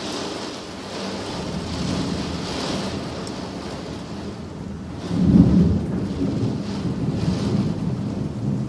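Violent thunderstorm: heavy downpour and strong wind lashing trees, a continuous loud rushing, with a louder low rumble rising about five seconds in.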